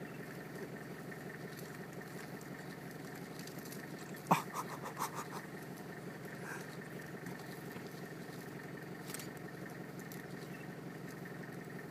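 A vehicle engine idling with a steady low hum. About four seconds in comes a sudden sharp sound, followed by a short run of quick pulses.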